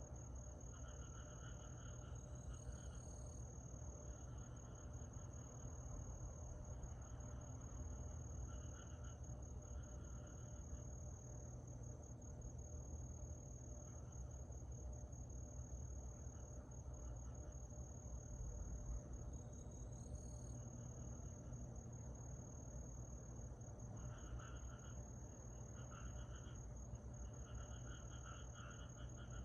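Summer night chorus of crickets: a continuous high, steady trill, with bursts of pulsed calls coming and going at a lower pitch and two brief rising chirps, over a faint low rumble.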